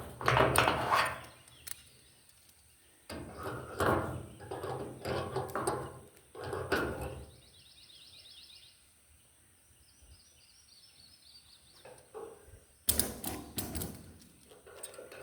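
Rough scraping and knocking in three bursts, with a faint rapid bird trill in the quiet stretch between them.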